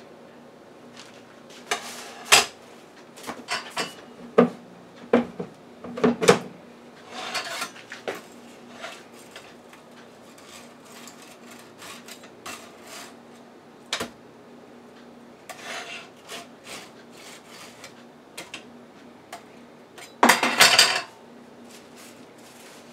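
A metal utensil clinking and scraping against a wire air-fryer rack as salmon fillets are turned over, with scattered clicks and short clatters and one louder clatter near the end.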